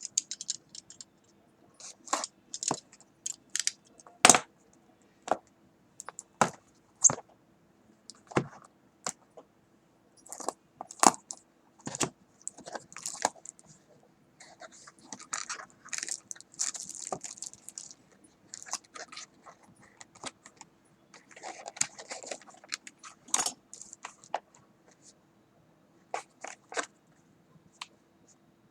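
Packaging of a boxed router being handled and opened: irregular clicks, knocks and scrapes with bouts of rustling of cardboard and plastic. A faint steady hum lies underneath.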